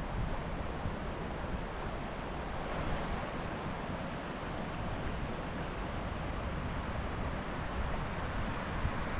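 Steady rush of a small river's flowing water, with a low rumble of wind on the microphone underneath.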